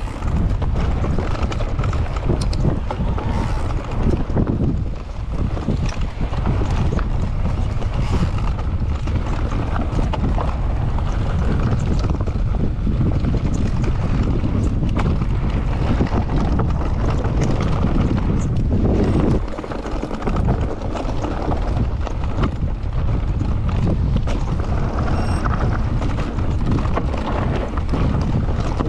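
Mountain bike descending a dirt singletrack: wind buffeting the microphone over tyre noise on dirt and rock, with frequent knocks and rattles from the bike over bumps. The noise eases briefly about two-thirds through.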